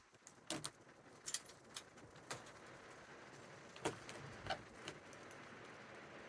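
Scattered sharp clicks and crackles at irregular intervals as Zip System tape is cut and pressed onto the plastic shell of a Thule roof box, over a faint steady hiss.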